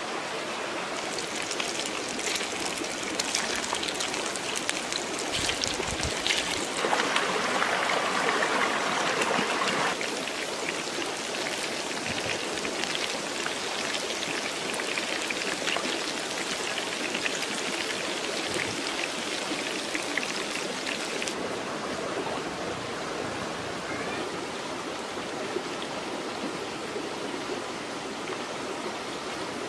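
Fish balls frying in a wok of hot oil: a steady sizzle full of small crackles, louder for a few seconds about seven seconds in.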